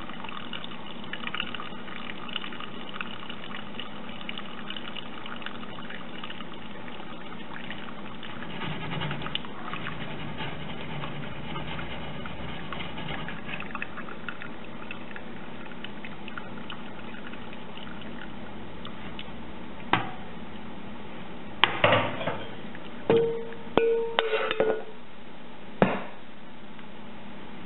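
Wort dripping and trickling from a bag of steeped grains in a stainless hop strainer into a stockpot, over a steady hiss from the gas burner heating the pot toward a boil. Near the end come a handful of sharp metal clanks and a brief squeal as the strainer is lifted out and set down.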